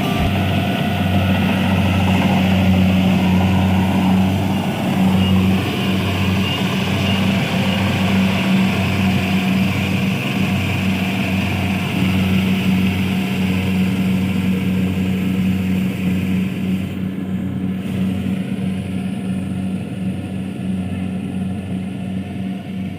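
Engine running steadily at an even speed, with a constant low hum; a higher hiss fades out about three-quarters of the way through.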